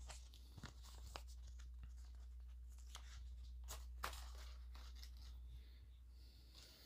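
Faint rustling and scattered small clicks from a paper sticker being peeled off its backing sheet and handled, with a brief papery rustle near the end. A steady low hum runs underneath.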